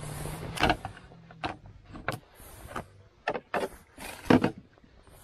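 Knocks, taps and rustles of handling as a white plastic tub lid holding cut bait is picked up and moved about on a boat's aluminium chequer-plate deck, the loudest knock near the end. A low steady hum runs underneath and stops about a second and a half in.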